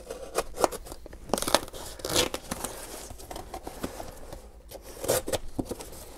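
Heavy decorative duct tape being slit with a small knife blade and ripped off a cardboard shipping box: an irregular run of tearing and crinkling strokes, the strongest about one and a half, two and five seconds in.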